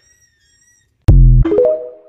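TikTok end-card sound: a sudden loud deep bass hit about a second in, followed by a short synthesized chime of a few notes.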